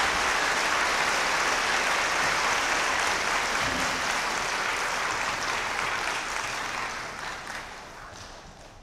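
Audience applauding steadily, the applause dying away over the last three seconds or so.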